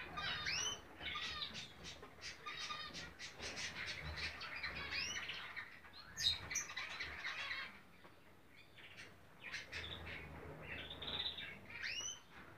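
Several zebra finches calling, a busy mix of short chirps and quick rising-and-falling call notes that overlap.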